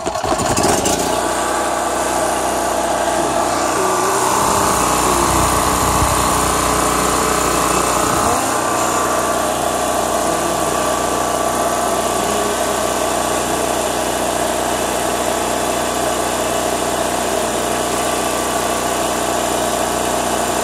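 Predator 3200/4000-watt portable generator's single-cylinder gas engine catching right at the start and then running steadily. The engine is governed a touch fast, with its output at about 60.9 Hz instead of 60 Hz.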